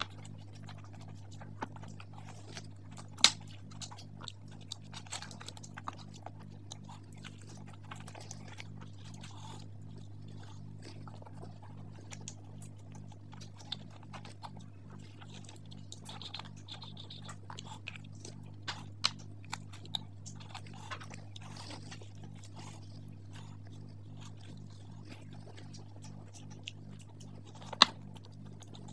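Close-miked eating by hand: wet chewing and lip-smacking on mutton curry and luchi, with many short sticky clicks and squelches. Two sharp clicks stand out, about three seconds in and near the end, over a low steady hum.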